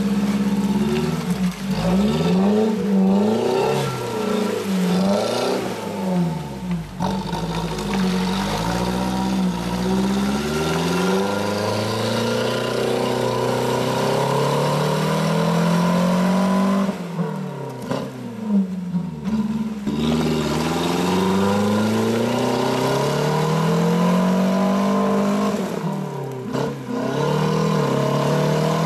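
Suzuki Grand Vitara 4x4 engine revving hard and unevenly while it claws up a rutted mud slope. The revs rise and fall over and over as the tyres spin and grip, and they drop away briefly twice in the second half.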